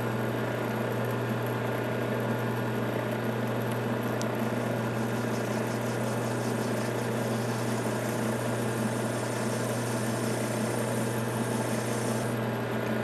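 Metal lathe running at a steady speed, its motor humming evenly. A faint high hiss joins from about four seconds in and fades near the end.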